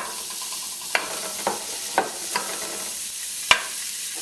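Seasoned beef short ribs sizzling in hot oil as they are laid one by one into a pan to brown, with a steady hiss and about six sharp taps as pieces go down, the loudest near the end.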